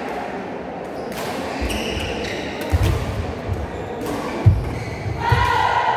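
Badminton rally: players' shoes thudding on the court floor several times, with sharp racket hits on the shuttlecock. Voices start up near the end.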